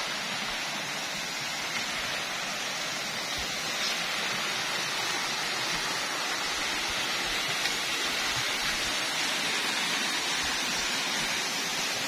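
Small waterfall and shallow stream: a steady rush of falling and flowing water, slightly louder from about four seconds in.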